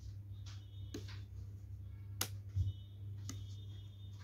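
Scissors snipping through thin cardstock: a few separate, sharp snips spaced about a second apart as small cuts are made along a pencil line.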